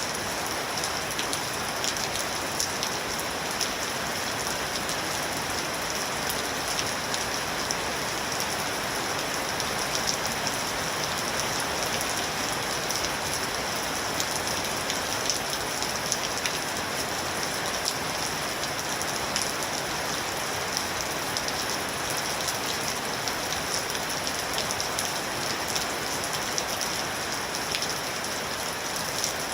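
Steady rain pattering on a surface, an even hiss with many small drop ticks.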